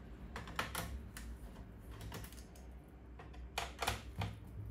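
Irregular light clicks and taps of a screwdriver and small screws on a laptop's plastic bottom case as the case screws are undone, with a tighter cluster of clicks near the end.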